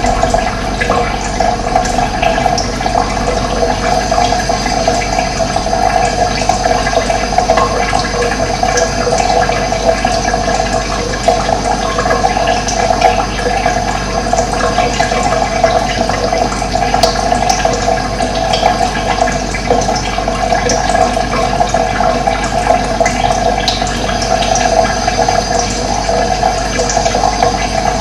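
Steady running water, like a stream or small cascade, with an even rushing sound that does not let up.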